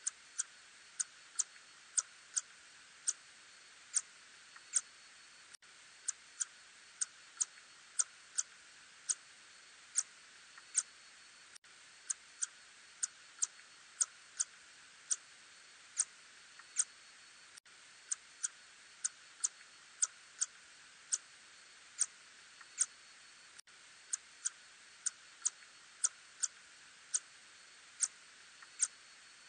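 Echolocation calls of an Ussuri tube-nosed bat (Murina ussuriensis), made audible, heard as sharp clicks at irregular spacing, roughly two a second, over a steady hiss.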